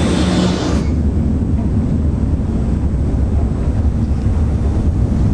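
Jet engine sound of the Bloodhound SSC's EJ200 played back over a hall's loudspeakers: a high whine that cuts off about a second in, leaving a deep, steady rumble.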